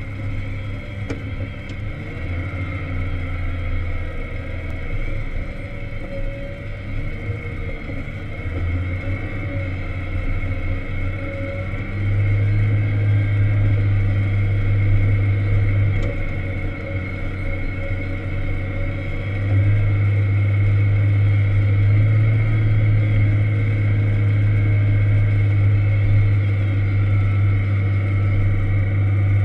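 Volvo L70 wheel loader's diesel engine running under load, heard from inside the cab, with a steady high whine over it. The engine grows louder about twelve seconds in, eases off briefly, and grows louder again about twenty seconds in as the loader pushes snow.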